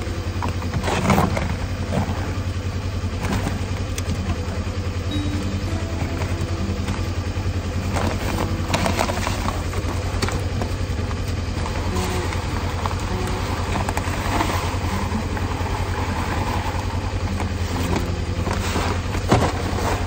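Vehicle engine running steadily with a low, even hum, with scattered knocks and rattles over it.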